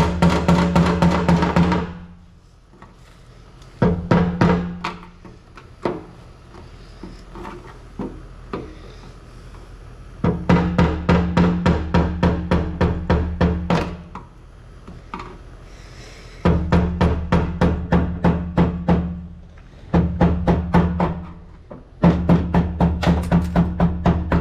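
Music with a fast, even beat over held low notes, dropping out briefly several times, with faint clicks in the gaps.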